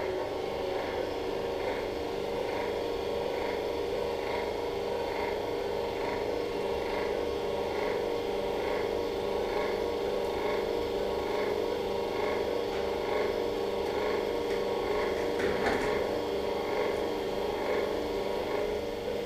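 Steady hum of operating-room equipment with a soft, regular beep repeating a little faster than once a second, like a patient monitor's pulse tone.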